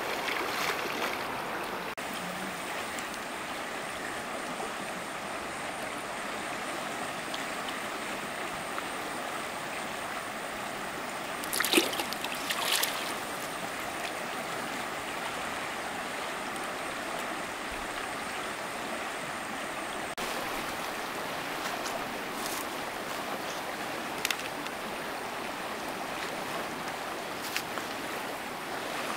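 Steady rushing of a flowing river. A few brief splashy or knocking sounds break through: around the start, a louder cluster about twelve seconds in, and single short ones near the end.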